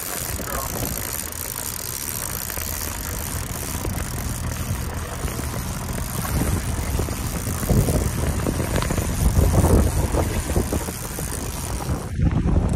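Outboard motor running steadily at trolling speed, with water rushing past the boat and wind on the microphone. Heavy low gusts of wind noise come about halfway through and again near the end.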